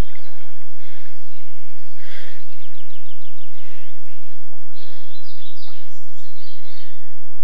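Brown bear wallowing in a shallow muddy puddle, the water splashing and sloshing in short bursts as it shifts its body. Small birds chirp throughout, with a quick trill about two and a half seconds in, over a steady low hum.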